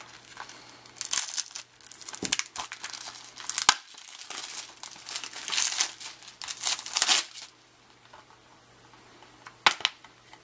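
Clear plastic shrink wrap crinkling and tearing in bursts as it is stripped off a Blu-ray case, then a few sharp clicks near the end as the plastic Blu-ray case is opened.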